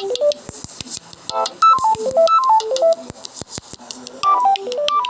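Samsung Galaxy A03 ringtone playing: a synthesized melody of quick falling runs of short notes, repeated several times over a clicking beat.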